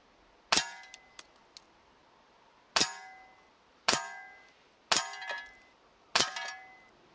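Air-rifle pellets striking a metal pellet trap behind a paper target: five sharp hits at uneven intervals of about a second, each leaving a short metallic ring.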